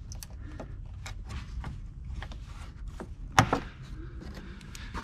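Small clicks and scrapes of a trim tool working under a white plastic cowl-trim retaining clip in a car body, with one sharp snap about three and a half seconds in as the clip pops out.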